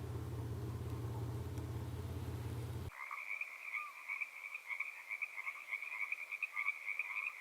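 Steady low vehicle rumble that cuts off abruptly about three seconds in, replaced by a chorus of frogs calling in rapid pulsing trills at two pitches, one high and one lower.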